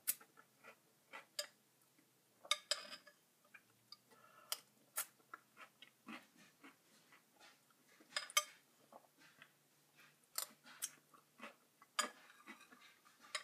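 Metal spoon clinking and scraping against a ceramic cereal bowl while eating cereal, irregular sharp clinks a second or so apart with a few louder ones, and softer chewing sounds between them.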